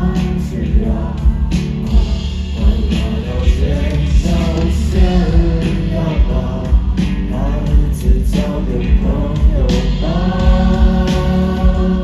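Live rock band playing with sung vocals, heard through a festival PA from within the crowd; heavy bass and drums, with a long held sung note near the end.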